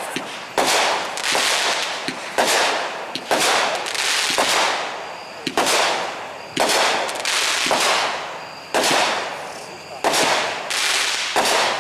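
Boomwow Eternal Moment 35-shot fireworks cake firing shot after shot, roughly one a second or a little faster, each a sharp report that trails off into a fading noise.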